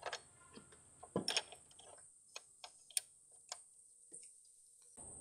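Faint, irregular light clicks and taps, about a dozen over a few seconds, from a hand tool tightening down a car battery terminal clamp.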